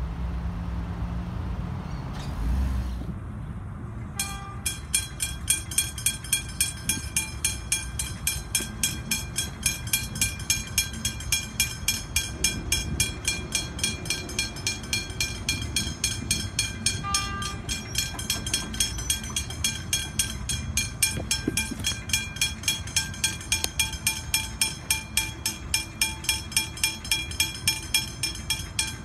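Railway level crossing bell ringing in a steady, even rhythm of about two strikes a second. It starts about four seconds in, after a low rumble.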